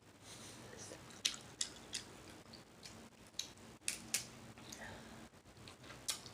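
Snow crab legs being eaten: faint, scattered sharp cracks and clicks of shell and chewing, about seven of them at irregular intervals.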